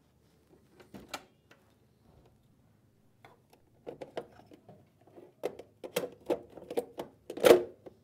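Plastic clicks and rattles from the Gaggia Accademia espresso machine's side service door and internal drip tray being opened and handled. A couple of light clicks come about a second in, then a quick run of knocks and rattles from about four seconds, loudest near the end.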